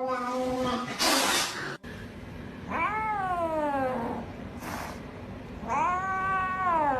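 Cat yowling: long drawn-out calls that rise and then slide down in pitch, two of them in the second half, with short noisy bursts in between.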